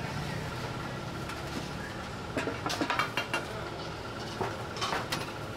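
Metal spatula scraping and clicking against a wide pan as a large peanut pancake is loosened and lifted out. There is a cluster of scrapes about two and a half to three and a half seconds in, and a shorter one near the end, over steady background noise.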